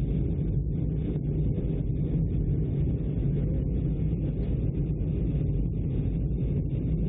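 Steady low rumble inside an airliner cabin in flight: jet engine and airflow noise, even and unchanging.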